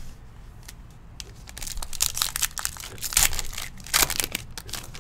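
Foil wrapper of a football trading card pack crinkling and tearing as it is pulled open by gloved hands. It is a dense run of sharp crackles from about a second and a half in to near the end.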